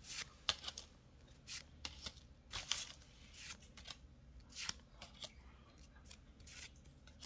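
Pokémon trading cards being flipped one at a time from the front to the back of a small hand-held stack. Each card gives a short slide or snap against the others, a dozen or so at uneven intervals.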